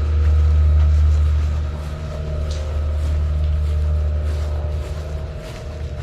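An engine running steadily, a low drone with a steady hum of tones above it, easing a little after about two seconds.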